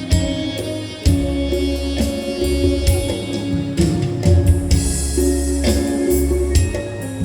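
Music with a strong bass line, plucked strings and regular percussion.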